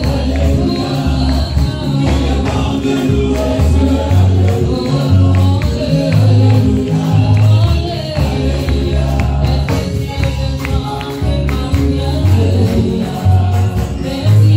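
A congregation singing a gospel praise song with a band, many voices together over a low bass line that moves in steady notes. Hand claps and small percussive ticks are mixed in.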